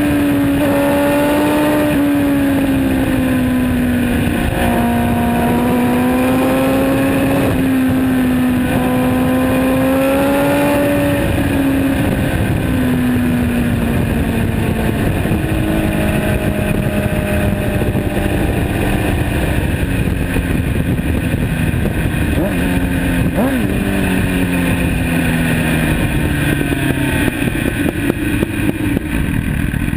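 MV Agusta Brutale motorcycle engine through a Termignoni aftermarket exhaust, heard close to the silencer while riding. The exhaust note wavers up and down with the throttle, then drops in steps through the second half as the bike slows, over steady wind and road noise.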